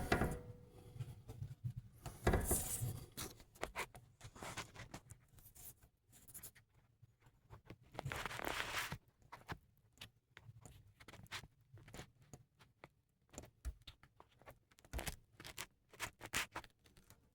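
Scattered soft clicks and rustling, with two brief louder swishes about two and a half and eight and a half seconds in.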